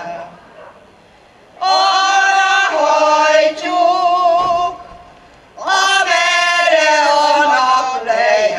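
Women's folk choir singing a Hungarian folk song unaccompanied: two long phrases of held, wavering notes, starting about a second and a half in and again about five and a half seconds in, with short pauses between.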